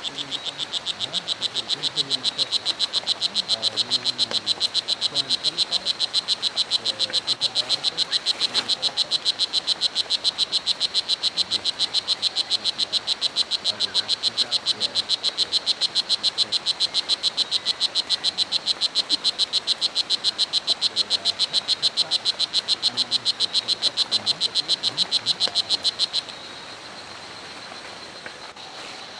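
Strawberry poison dart frog (Oophaga pumilio) calling: a high-pitched, rapid, evenly paced train of chirps that continues unbroken and stops suddenly near the end.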